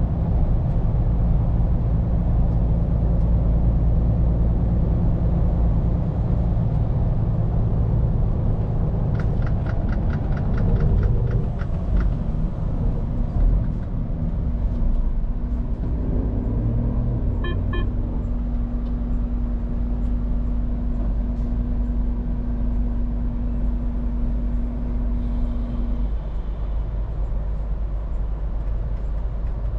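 Scania P410 truck's diesel engine running steadily on the move, a low rumble heard in the cab. About ten seconds in comes a quick run of ticks. A steady hum rides over the engine through the middle of the stretch.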